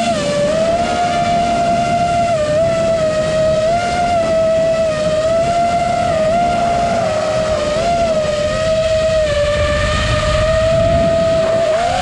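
FPV quadcopter's brushless motors and propellers whining at a steady high pitch, the pitch dipping and rising slightly a few times as the throttle changes, over a rushing noise underneath.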